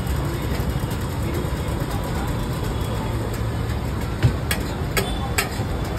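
Chopped tomatoes, onions and peas sizzling on a large flat tawa griddle over a steady low rumble. About four seconds in, a metal spatula strikes the griddle a few times with sharp clicks.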